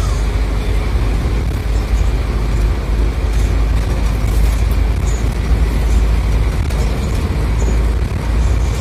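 A bus's diesel engine and tyres running steadily at road speed, heard from inside the cabin as a loud, even low rumble with road noise.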